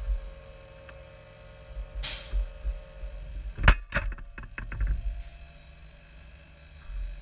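A large stone released from a model excavator's sorting grab lands with a sharp bang in a model truck's metal tipper body, followed by a quick rattle of smaller knocks as it settles. Before it, a faint steady motor whine and a short hiss about two seconds in.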